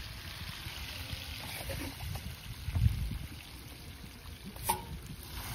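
Trickling, splashing water from a dense shoal of small fish churning the surface of a pond, with wind rumbling on the microphone. There is a louder swell about three seconds in.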